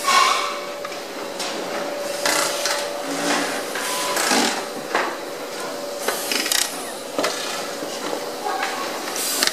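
Electronics assembly line at work: irregular clicks and clatter of plastic casings, boards and screws being handled, and handheld electric screwdrivers driving screws into the casings, over a steady machine hum.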